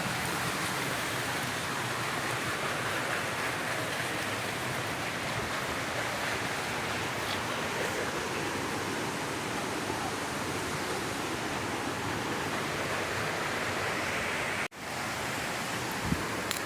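Steady rushing water, an even hiss-like noise that cuts out for a moment near the end.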